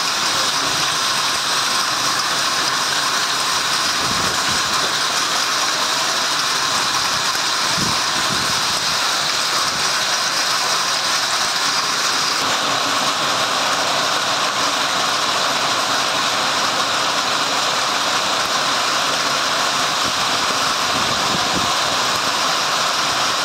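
Heavy rain mixed with hail pouring down, a loud, steady hiss that does not let up.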